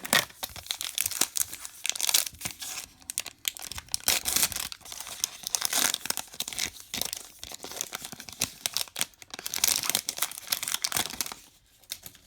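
Baseball card pack wrapper being torn open and crinkled, a dense irregular crackling that stops about a second before the end.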